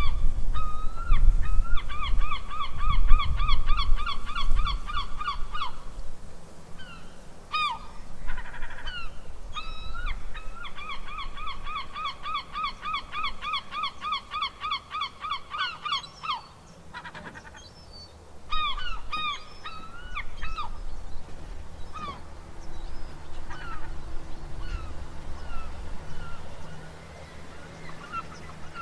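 Gulls calling: two long runs of quickly repeated yelping notes, with scattered single cries between them, over a low rumble that is strongest near the start.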